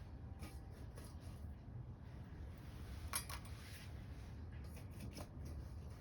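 Small wood fire burning in a compact metal wood stove: a low steady rumble of the flames with sparse crackles and pops of burning wood, the sharpest about three seconds in.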